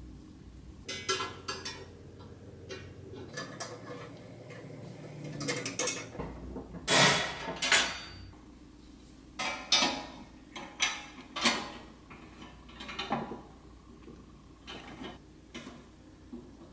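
Bent steel wire rod clinking, scraping and clicking against a painted steel toy dump truck chassis as it is worked into place: a run of sharp metal clicks and rattles, loudest about seven seconds in.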